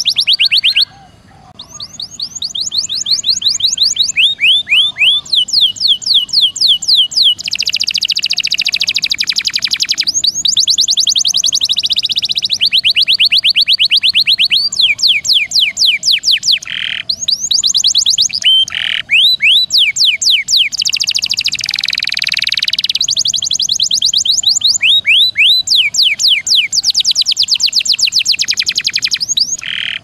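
Domestic canary singing long rolls: rapid trills of repeated high notes, switching from one roll to the next every second or two, with a brief pause about a second in.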